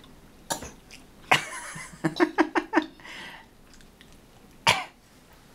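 A baby coughing in short bursts: single sharp coughs, a quick run of about five small voiced coughs in the middle, and one louder cough near the end.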